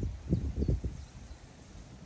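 A walker's footsteps: a few short, low thuds in the first second, then only quiet outdoor background.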